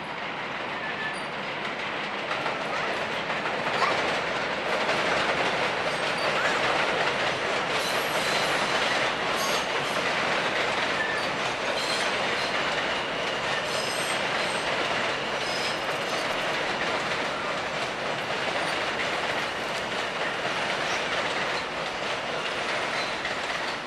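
A train passing close by, its wheels running and clattering over the rails in a continuous rush with scattered sharp clicks. It swells over the first few seconds, is loudest for a stretch after that, and eases only slightly.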